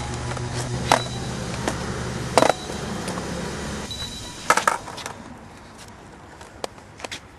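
Skateboards on pavement: a steady rumble of wheels rolling for the first couple of seconds, then sharp clacks of boards hitting the ground, loudest about two and a half and four and a half seconds in, with quieter knocks after.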